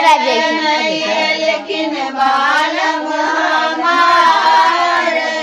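Women singing a Maithili Madhushravani folk song together, several voices at once.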